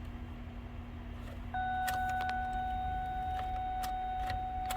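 Ignition key clicks in a 2007 Mazda B3000 pickup, and a steady electronic warning tone starts about a second and a half in. No cranking follows: the passive anti-theft system (PATS) rejects the key after the PCM swap, so the truck won't start.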